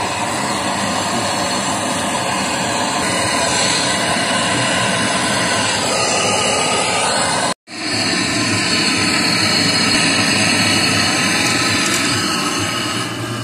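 Gas brazing torch flame hissing steadily while brazing a copper refrigerant tube joint on a refrigerator. The hiss is loud and cuts out for a split second about halfway through.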